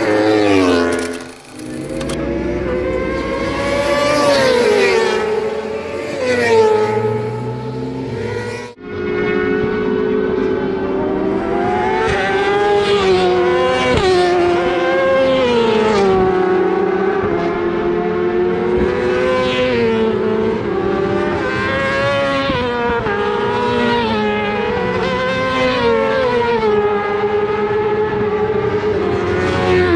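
Racing motorcycle engines revving, their pitch climbing and dropping back again and again as they accelerate and shift through gears around the circuit. The sound breaks off sharply twice in the first nine seconds.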